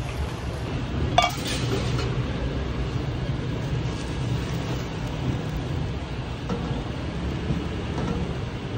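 Steady low rumble of street background noise, with a single sharp, ringing clink about a second in.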